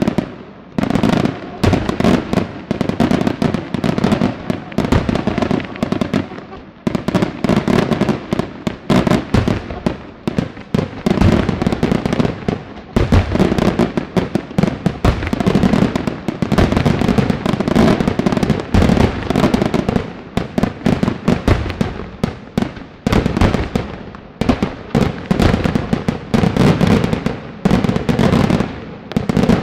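Daytime fireworks display: aerial shells bursting in a dense, almost unbroken run of rapid bangs, with short lulls about seven and thirteen seconds in.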